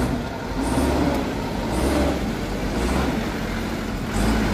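Mitsubishi Colt Diesel dump truck's diesel engine running under load as the truck ploughs through deep mud. A steady low rumble swells and eases, with a brief higher swish about once a second.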